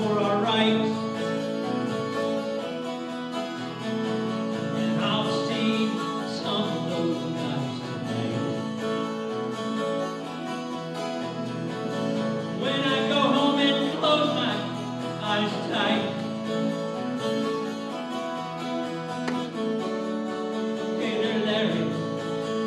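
School band playing with an acoustic guitar strumming chords over sustained band chords, the strums standing out every few seconds.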